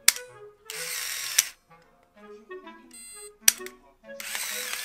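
Two clicks from a Canon AF35 ML 35 mm film camera, each followed about half a second later by a short whir of its built-in film-advance motor, over background music.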